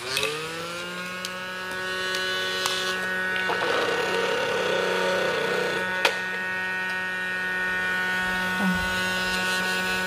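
Battery-powered toy vacuum cleaner switched on: its small motor spins up with a brief rising whine, then runs with a steady buzzing whine. A stretch of rougher noise comes in the middle, and there is a single click about six seconds in.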